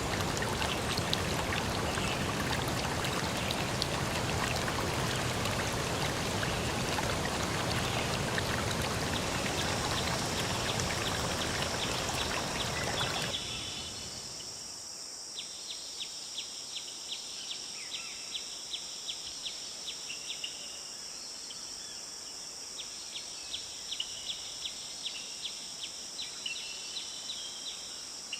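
Steady rushing of a flowing stream, which cuts off abruptly about halfway through. Insects take over, chirping in rapid high trills that come in runs of a second or two, over a steady high-pitched hum of more insects.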